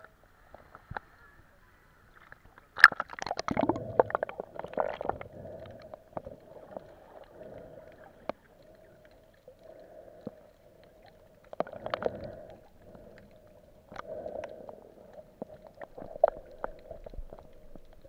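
Muffled underwater water noise, rushing and gurgling, heard through a camera's waterproof housing as it goes under the surface. There is a steady hum underneath, scattered clicks and knocks, and a louder stretch of rushing water about three seconds in.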